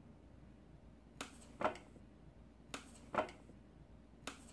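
Scissors snipping at a filled rubber balloon: three pairs of short, faint clicks, the pairs about a second and a half apart.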